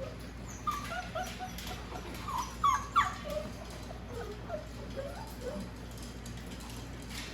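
Bernedoodle puppies whimpering in a string of short, high whines, several rising sharply in pitch and loudest about two to three seconds in, dying away by about five and a half seconds.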